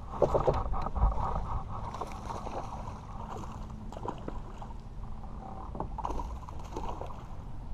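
Water splashing and small knocks against a plastic fishing kayak as a bass is reeled in and swung aboard, loudest about a second in. Low wind rumble on the microphone runs underneath.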